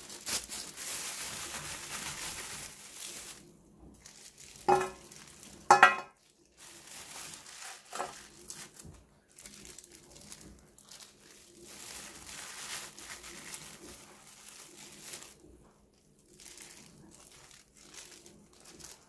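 A plastic bag and a thin disposable plastic glove crinkle as frozen potato pieces are picked out and set on a wire oven rack. The crinkling is dense for the first few seconds, then comes in short soft bursts, with two brief louder knocks about five and six seconds in.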